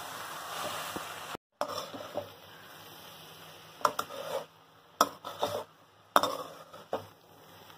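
A steel slotted spatula scraping and knocking against a kadai as flaked fish is stirred and fried, over a soft sizzle. The sizzle is stronger for the first second or so; after that come several separate scrapes, the sharpest about six seconds in.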